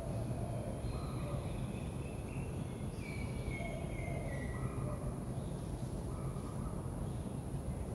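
Birds chirping in short calls, with a run of descending notes about three seconds in, over a steady low background hum.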